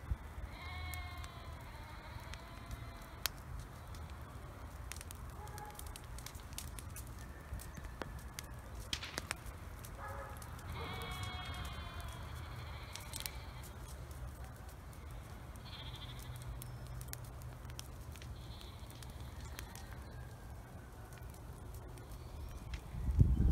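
Bleating from livestock, two wavering calls about ten seconds apart, over scattered faint pops and crackles from a burning brush pile. A louder low rumble starts right at the end.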